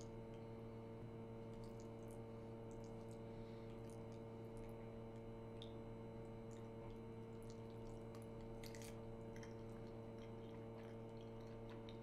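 Quiet steady electrical hum with faint scattered clicks and small wet sounds, the densest cluster of clicks about three-quarters of the way through.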